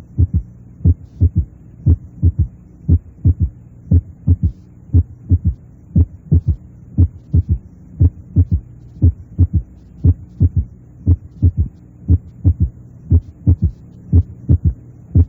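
A child's heart sounds through a stethoscope bell applied lightly to the chest: a regular heartbeat with a low-pitched normal third heart sound just after the second sound, over a steady low hum.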